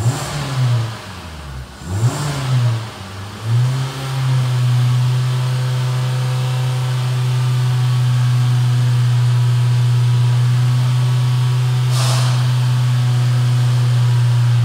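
Hyundai ix35's 2.0-litre four-cylinder engine revved in park. Three quick blips rise and fall over the first few seconds, then it is held steady at about 4,000 rpm. A brief hiss comes about twelve seconds in.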